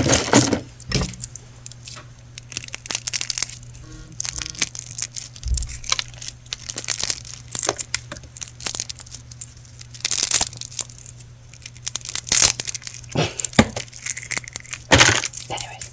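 Close-up handling noises: irregular taps, clicks, scrapes and rustles of small objects being handled and moved, over a faint steady hum.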